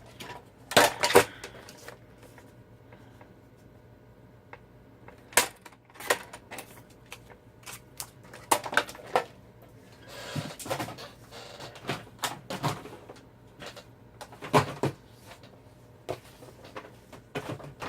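Irregular clicks, taps and knocks of paper-crafting tools and cardstock being handled on a work table, with the loudest cluster about a second in.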